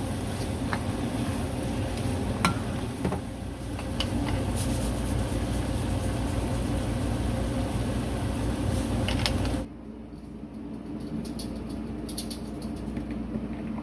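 Kitchen cooking sounds: a steady hiss with occasional light clicks of utensils, changing abruptly about ten seconds in to a quieter background with a few more light clicks.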